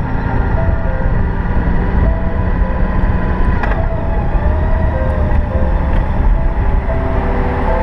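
A moving road vehicle carrying the camera: a steady, loud running rumble, with faint tones that shift in pitch now and then and a brief click a little over three and a half seconds in.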